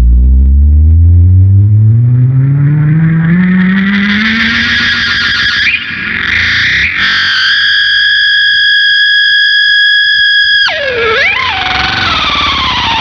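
Gibson SG electric guitar through a Big Muff fuzz and MXR Analog Delay pedal, making spacey, sustained tones. The pitch glides steadily upward for several seconds, then holds one high note. Near the end it drops sharply with a wobble and slides slowly downward.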